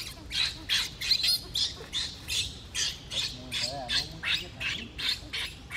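Baby macaque screaming in distress while its mother pins it to the ground: a rapid run of short, shrill cries, about three a second.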